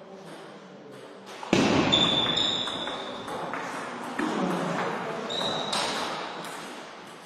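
Table tennis rally: the celluloid ball clicking off rubber-faced paddles and the table in quick succession. A sudden louder noise comes about a second and a half in, and a high steady squeak sounds twice.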